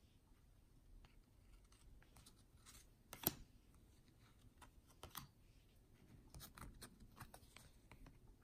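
Faint clicks and rustles of 2014 Topps baseball cards being flipped through by hand, card stock sliding and snapping against the stack, with two sharper clicks about three and five seconds in.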